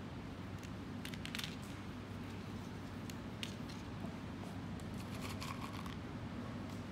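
Light clicks and rustling of dried beans being pressed onto glued paper by hand, in a few small clusters, over a steady low hum.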